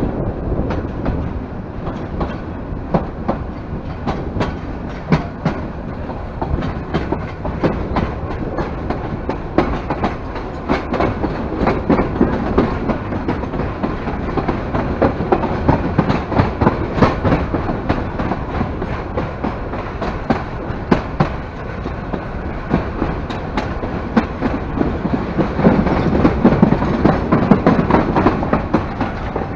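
Bangladesh Railway passenger train running along the track, its wheels clattering over the rail joints in a steady rumble broken by many sharp clicks, heard close from an open carriage window. It grows a little louder near the end.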